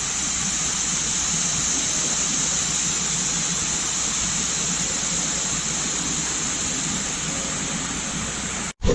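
Steady, even rushing hiss of shop background noise with no distinct strokes or tones, breaking off abruptly near the end.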